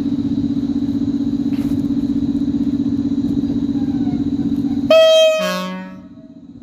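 EP07 electric locomotive humming steadily, then sounding a short, loud two-note horn blast about five seconds in, a higher note followed by a lower one, fading out over about a second: the departure signal as the train pulls away.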